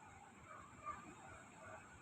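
Near silence: faint background with one brief, faint sound just under a second in.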